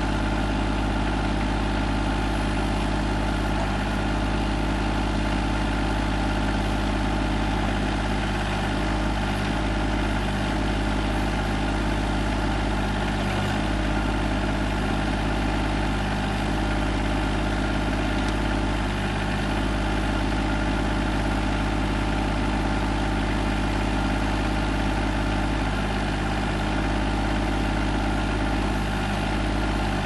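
TYM T25 compact tractor's diesel engine running steadily at a constant speed while it drives the backhoe hydraulics digging a trench.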